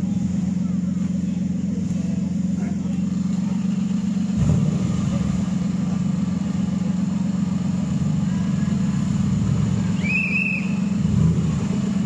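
Off-road 4x4's engine running steadily at low revs as it crawls through deep mud, with a jolt about four seconds in and a short high-pitched tone near the end.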